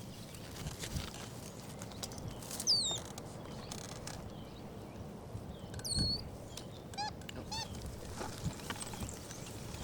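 Capuchin monkeys making a few short, high-pitched calls: a falling whistle, then a quick run of chirps near the end, over faint outdoor background.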